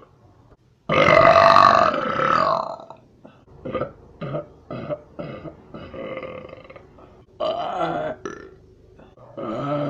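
A person burping: a long, loud burp about a second in, then a run of short burps, and another long burp near the end.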